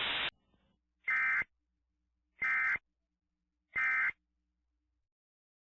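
Emergency Alert System end-of-message code: three short identical bursts of SAME digital data tones, each a brief buzzy screech, spaced about a second apart. A short hiss of static cuts off just before the first burst.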